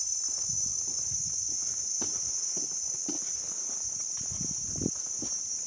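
Forest insects keep up a steady, high-pitched buzz, with irregular footsteps on the trail underneath.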